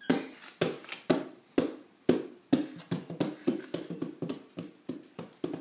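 A drum beaten by hand, each stroke leaving a short ringing tone. The strokes come about twice a second, then quicken to three or four a second about halfway through.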